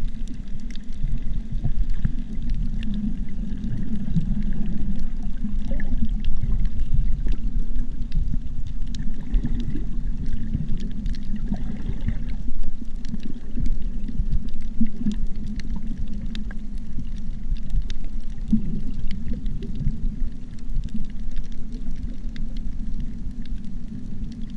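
Underwater sound picked up by a GoPro sealed in its waterproof housing: a steady, muffled low rumble of moving water with scattered faint clicks throughout.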